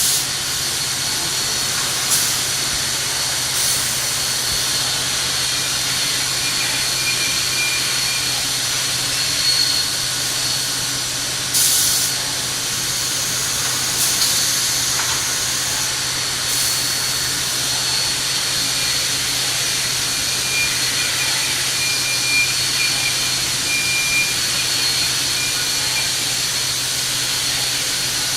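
Gabbiani Galaxy 105hs CNC beam panel saw running: a steady hiss over a constant low hum with a thin high whine. Short sharp hissing bursts come every few seconds, one of them about a second long near the middle.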